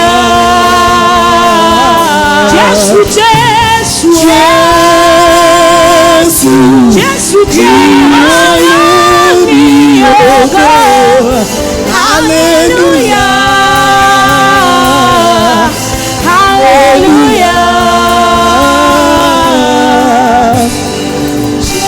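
Live gospel worship music: a lead voice singing long held notes with vibrato over band accompaniment.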